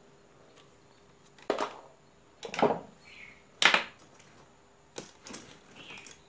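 Multimeter test probes and leads knocking and clattering on a wooden workbench as they are lifted off a battery and set down: a handful of sharp knocks, the three loudest about a second apart, then two lighter ones.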